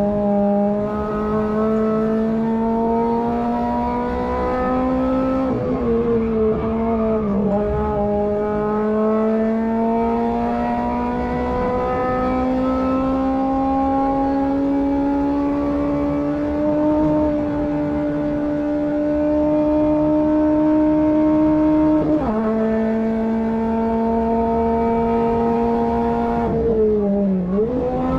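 Renault Twingo 1.2 8v four-cylinder engine heard from inside the cabin at high revs, pulling hard with its pitch climbing slowly. It wavers briefly about six seconds in, drops suddenly at an upshift about twenty-two seconds in, and dips again near the end as the throttle comes off and back on.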